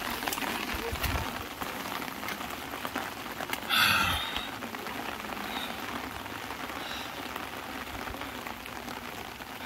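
Light monsoon drizzle falling steadily, a soft even patter of rain, with a brief louder swish about four seconds in.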